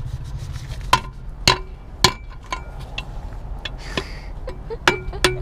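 Sharp metal knocks on a Honda Tact scooter's muffler, about seven at irregular gaps of roughly half a second, each ringing briefly: knocking carbon out of the clogged silencer. A low steady hum runs underneath.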